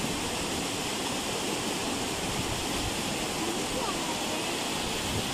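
Water gushing out of a dam sluice gate and pouring into a shallow, churning pool below, a steady rushing noise.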